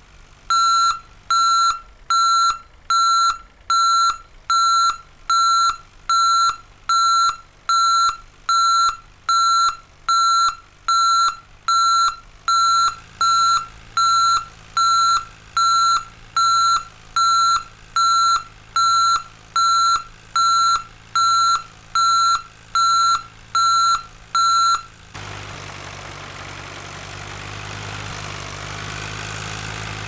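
Electronic warning beeps on one steady pitch, like a reversing alarm, repeating a little over once a second. They stop about 25 seconds in and give way to a steady low engine hum.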